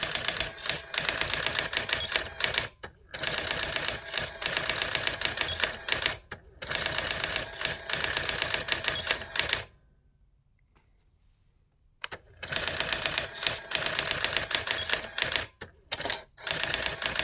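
Brother AX-20 electronic daisy-wheel typewriter printing rapid runs of characters in bursts of about three seconds each, with a near-silent pause of about two seconds two-thirds of the way through. It is printing terminal output sent to it over serial, part of it a stray escape code.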